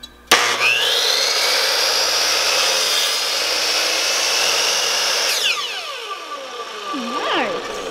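Electric compound miter saw (chop saw) switched on with a sudden start, its whine rising as the blade spins up. It cuts an angled end through a wooden board with a steady whine, then the pitch falls away as the trigger is released and the blade spins down, about five seconds in.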